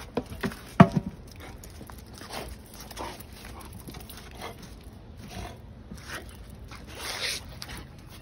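A bull terrier playing with a car tyre on concrete: a quick run of knocks and thumps in the first second, the loudest about a second in, then scattered short sounds as the dog noses and mouths the tyre.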